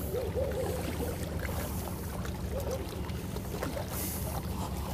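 Steady low rumble of wind on the microphone, with small sea waves lapping at the rocky shore.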